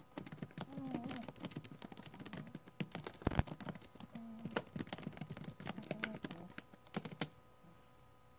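Typing on a laptop keyboard: rapid key clicks that stop about seven seconds in, with one louder thump about three seconds in.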